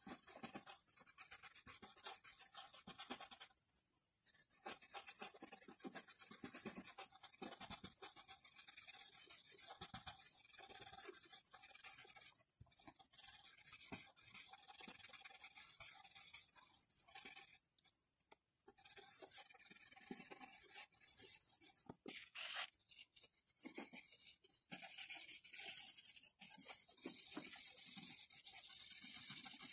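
Pencil scratching across paper in repeated shading strokes, with a few brief pauses where it lifts off the page.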